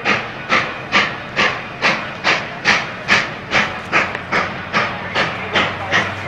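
Canadian Pacific 2816, a 4-6-4 Hudson steam locomotive, working hard under load with a steady beat of exhaust chuffs, about two and a half a second, over a low hum.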